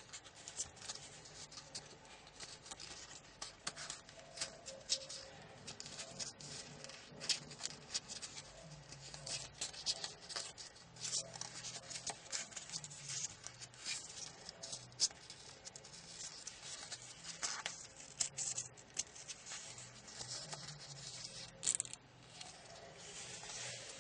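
A small sheet of origami paper crinkling and crackling as fingers fold, pinch and shape it, with many short, sharp crackles.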